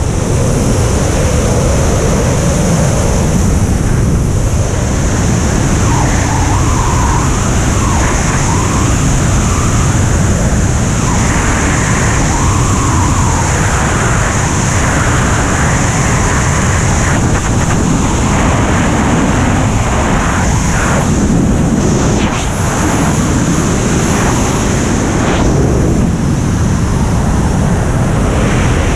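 Loud, steady rush of wind over a camera microphone in wingsuit flight, with a constant high hiss over the roar of the airflow.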